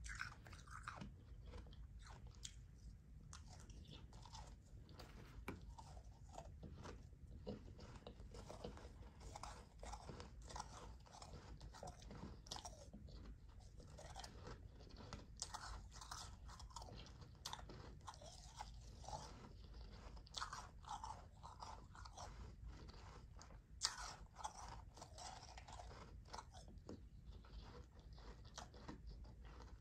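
Soft, powdery ice being chewed close to the microphone: a steady run of quiet, crisp crunches, with one sharper, louder crunch late on.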